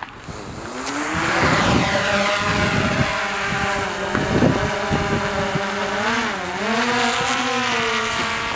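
Car engine revving up and accelerating as the car pulls away, its pitch climbing in the first seconds and then holding. About six and a half seconds in, the pitch drops briefly and rises again.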